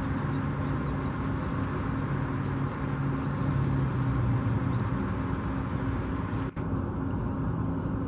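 A steady low engine hum over a constant background rumble, with a momentary drop-out about six and a half seconds in.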